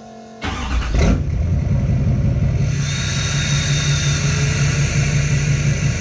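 Duramax turbodiesel V8 in a GMC Sierra Denali pickup cranked and started: it catches about a second in and settles into a steady idle for warming up. A higher hiss joins the engine sound about three seconds in.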